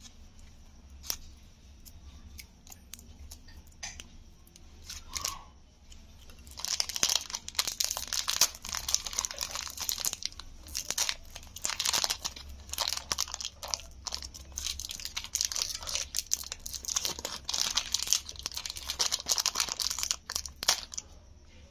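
Clear cellophane lollipop wrapper crinkling as fingers work it off the stick: a few scattered crackles at first, then dense, continuous crinkling from about a third of the way in until just before the end.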